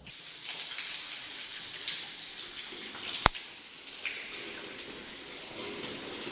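Rainwater falling and splashing, a steady hiss of drops, with one sharp click about halfway through.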